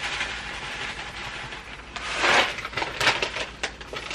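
A plastic food bag crinkling and rustling as it is handled and opened, with a louder rustle about two seconds in and a few light clicks and knocks.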